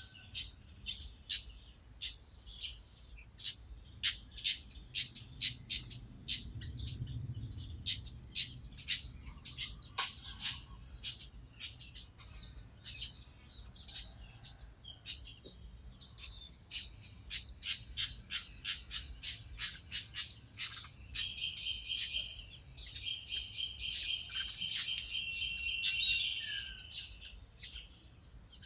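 Pied fantail calling: sharp chip notes repeated about twice a second, then a longer run of rapid, squeaky chattering notes about three quarters of the way through.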